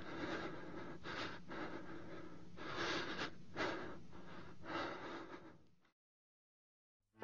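A person breathing heavily, with about one noisy breath a second over a faint low hum, then cutting off.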